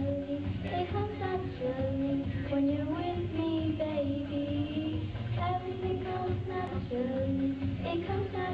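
Two girls singing a pop song together into microphones, heard through the hall's PA, over a steady backing track.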